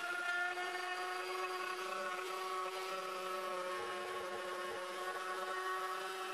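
Handheld rotary tool with a sanding band running at steady speed, a steady high whine, sanding a cured resin piece.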